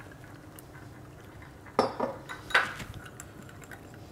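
Small metal wire whisk stirring a cornflour-and-water slurry in a small glass bowl, the wires clinking sharply against the glass a few times about two seconds in.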